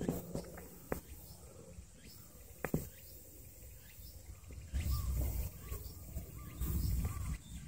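Quiet park ambience: faint bird chirps and a steady high insect drone, with a few soft clicks early on and low rumbling on the microphone through the second half.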